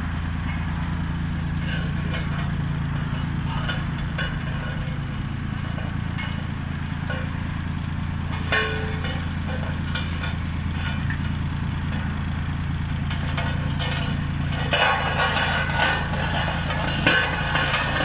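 Road roller engine running steadily at a low, even speed, with scattered light clicks. A louder rough noise joins over it near the end.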